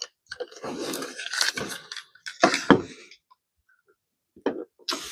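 Plastic and metal parts of a motorcycle fuel pump assembly being handled and unclipped: a few seconds of scraping and rattling, then several short sharp clicks near the end.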